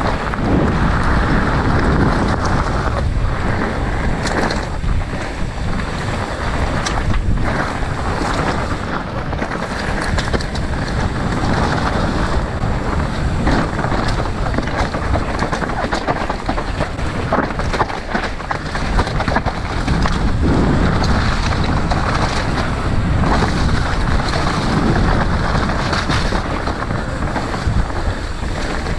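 Strong wind buffeting the camera microphone during a mountain-bike ride on a very windy day: a loud, continuous rushing noise, broken by frequent short knocks and rattles.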